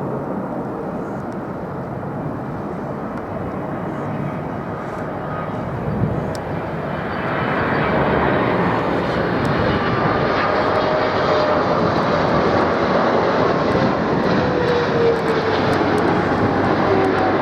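Jet airliner passing on approach to land, its engine noise swelling about seven seconds in, with a whine that slowly falls in pitch as it goes by.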